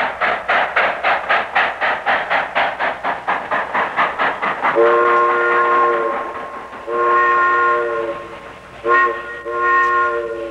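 Steam locomotive working with fast, even exhaust chuffs, about five a second. Then its chord-toned steam whistle sounds four blasts: long, long, short, long, the grade-crossing signal.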